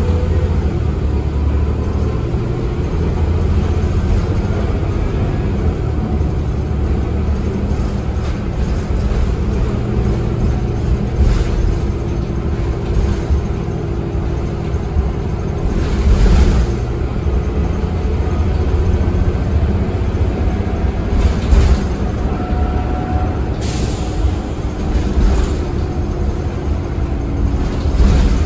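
A 2013 Eldorado National Axess transit bus riding along, heard from inside the cabin: a steady low engine and road rumble, with several short air hisses from the air brakes.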